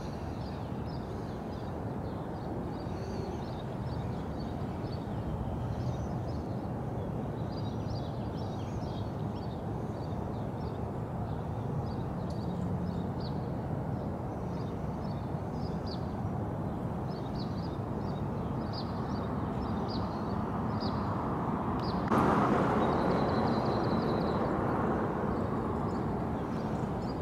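Outdoor ambience: a steady low rumbling background with small birds chirping now and then. About 22 seconds in, a louder rushing swell rises and fades away over a few seconds.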